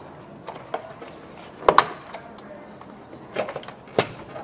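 Plastic car interior trim being worked loose by hand: scattered sharp clicks and knocks, the loudest a quick double knock just under two seconds in.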